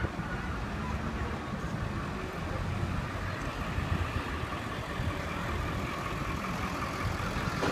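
An engine idling with a steady low hum, under the general noise of a city street.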